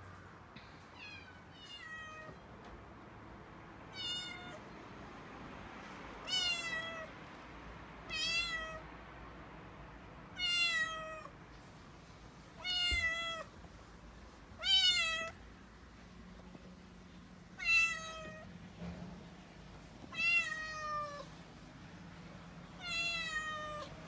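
Young calico kitten meowing over and over, about eleven drawn-out calls spaced roughly two seconds apart, each rising then falling in pitch: distressed crying, the kitten panicked by strangers in the house.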